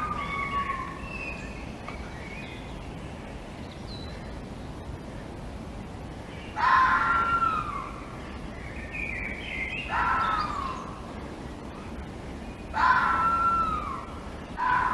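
Red fox screaming. A call fades out at the start, then after a pause of several seconds come four harsh screams, roughly every two to three seconds, each falling in pitch. Birds chirp faintly between the calls.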